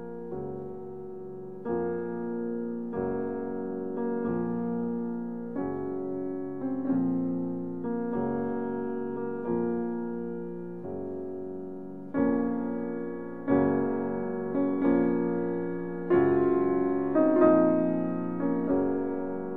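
Gentle background music played on a piano or electric piano, slow chords struck about once every second or so, growing louder in the second half.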